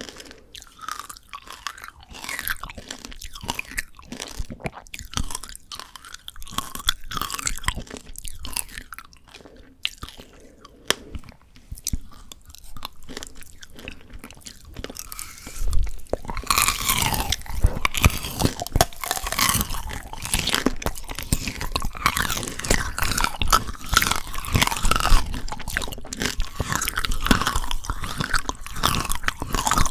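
Close-miked eating of frozen Shine Muscat grape tanghulu: the hard sugar candy shell cracks and crunches between the teeth with wet chewing. Chewing is quieter for the first half, then about halfway a loud bite sets off dense, louder crunching.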